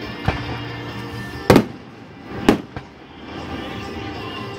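Aerial fireworks shells bursting in a display: four bangs, the loudest about one and a half seconds in, another strong one a second later with a small pop right after it.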